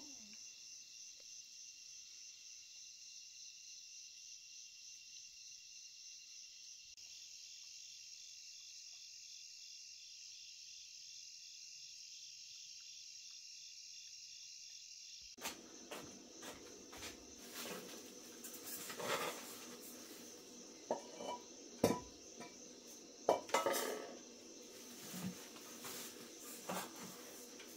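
A steady, pulsing chorus of insects. About halfway through, a run of sharp clinks and knocks starts over it and keeps going to the end.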